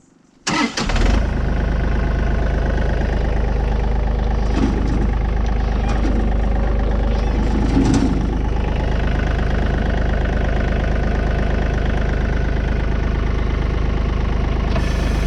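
Tractor engine starting about half a second in, then running at a steady idle.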